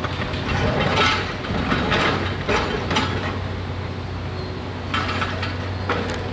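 Hitachi 670 LCH excavator's diesel engine running steadily under load while demolition debris cracks, crunches and clatters, in bursts over the first three seconds and again near the end.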